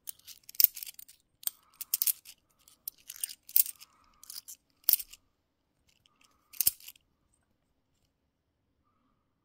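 50p coins clinking as they are handled and set down one after another: irregular sharp metallic clinks, stopping about seven seconds in.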